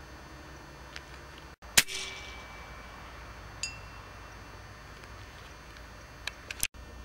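Air Arms S410 pre-charged pneumatic air rifle firing once, a sharp crack about two seconds in that rings out briefly. Fainter clicks and a small ping follow later.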